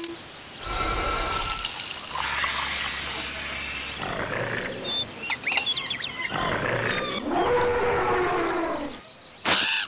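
Animal calls and nature sound effects from a TV commercial, a run of different cries one after another: short squeaky calls in the middle, a lower wavering cry later, and a quick swish near the end.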